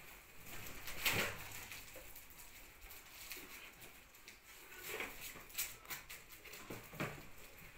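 Gift wrapping paper and packaging rustling and crinkling as parcels are unwrapped by hand, in irregular crackles with the loudest about a second in and a busier patch near the end.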